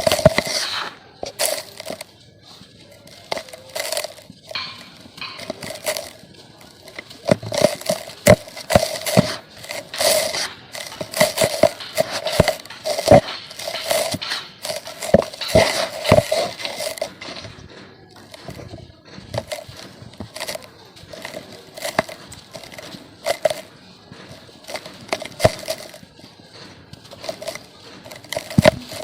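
Chunks of dried red dirt being crushed and crumbled by hand, giving a dense run of irregular crunches and crackles. The crunching thins out briefly about two thirds of the way through.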